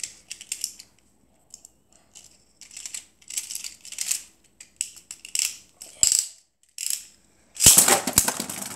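Plastic clicking and ratcheting from a Beyblade launcher as a top is fitted on and the ripcord fed in, in a string of short bursts. Near the end comes a louder rip as the top is launched, hitting the plastic stadium floor with a sharp clack and spinning on.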